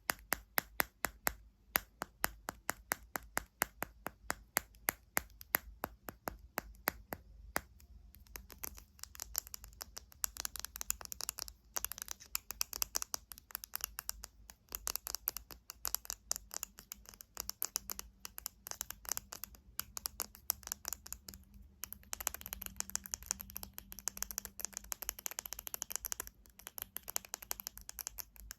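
Fingernails tapping on a hard object in sharp, even clicks about three a second, then from about eight seconds in faster, denser tapping mixed with scratching.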